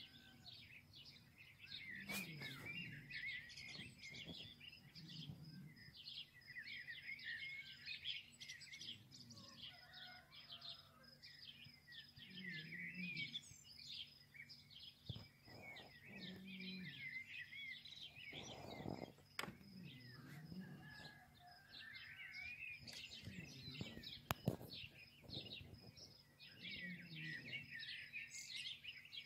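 Faint, continual chirping of many small birds, with a few light clicks scattered through it.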